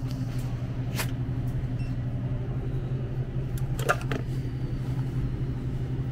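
Steady low electrical-mechanical hum of a convenience store interior, with a short click about a second in and a quick cluster of sharp clicks and taps around four seconds in, the loudest sound here, as small items are handled.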